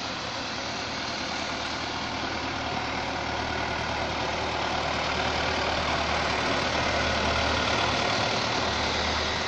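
Engine of a municipal street-watering truck running steadily, with a low hum that grows a little stronger partway through, under a constant hiss of spraying water and rain.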